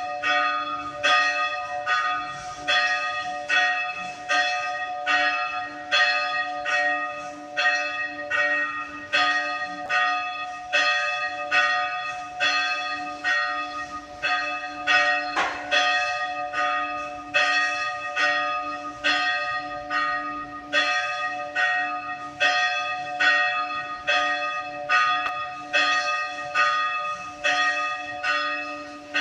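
Church bells of Phùng Khoang church ringing, one stroke about every second in a steady, even rhythm, with a low hum that carries on between the strokes.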